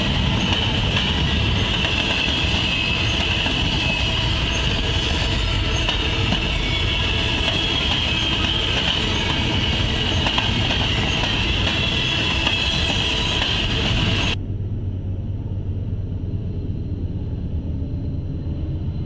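Freight train of intermodal well cars rolling past close by: a loud, steady rumble of wheels on rail with a continuous high wheel squeal over it. About 14 seconds in, this cuts off suddenly to the quieter low rumble of a diesel-led train.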